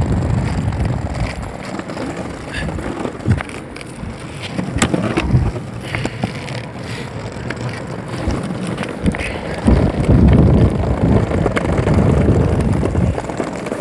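Skateboard wheels rolling over brick paving and concrete: a steady rough rumble with scattered sharp clicks as the wheels cross the joints, growing louder about ten seconds in.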